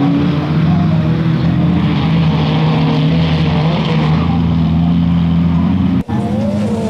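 Autocross touring cars' engines running hard at high revs as the cars power-slide through a dirt bend, with a steady engine note and the hiss of tyres throwing loose dirt. The sound cuts out for an instant about six seconds in, and a different engine note follows.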